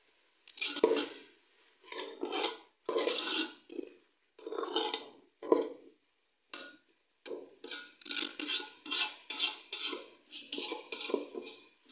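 Slotted steel spoon stirring shredded cabbage and peas in an aluminium pot, scraping against the metal pot in separate strokes. The strokes are irregular at first and quicken to about two or three a second in the second half.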